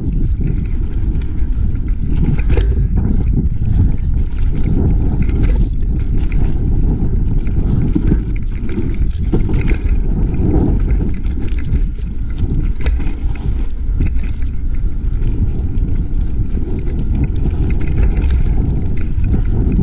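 A mountain bike rolling fast down a dirt trail: steady wind buffeting the microphone and the rumble of knobby tyres on dirt, with scattered knocks and rattles from the bike over bumps.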